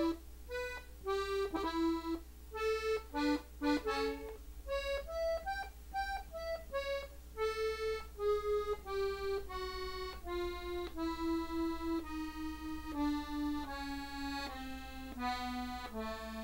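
Gabbanelli button accordion, E-tuned, playing a slow line of single treble notes one at a time. The first few seconds hold some quick short notes; after that each note is held briefly and the line steps steadily downward in pitch.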